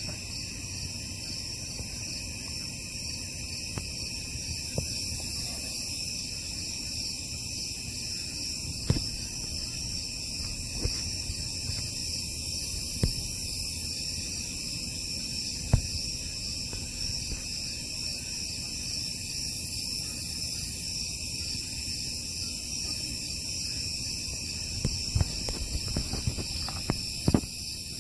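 Steady chorus of calling insects, several high-pitched trills layered together with a fine pulsing texture, with a few faint sharp clicks scattered through it and more near the end.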